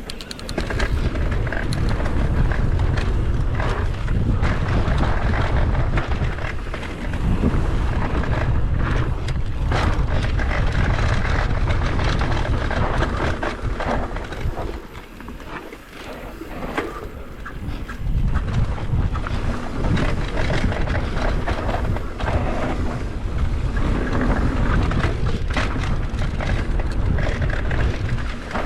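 Mountain bike riding fast down a rutted dirt trail: wind rushing over the microphone, tyres on dirt and the bike rattling over bumps, easing off briefly around halfway through.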